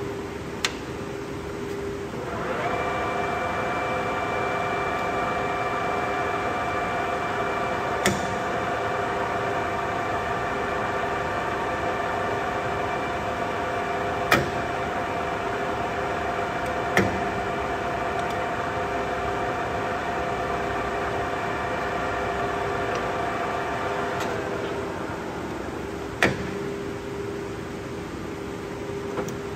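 Colchester Triumph 2000 centre lathe running: about two seconds in the spindle and headstock gearing start up with a steady whine of several tones that holds for about twenty seconds, then winds down, over a steady hum that runs throughout. A few sharp clicks from the controls sound along the way.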